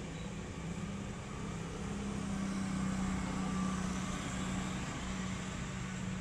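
Road traffic: a steady low engine hum under a hiss, swelling a little about halfway through as a vehicle passes, then easing.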